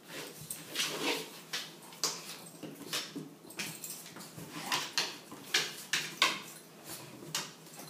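Two dogs play-fighting: a rapid, uneven string of short, sharp yips and snarls, more than a dozen over several seconds.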